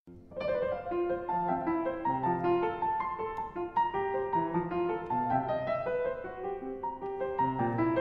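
Piano music that starts suddenly out of silence and runs on as a stream of quick, overlapping notes.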